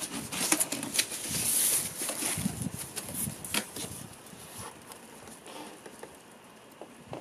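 Cardboard box being pulled open and its flaps folded back: sharp crackles and rustling through roughly the first three and a half seconds, then quieter handling of the cardboard.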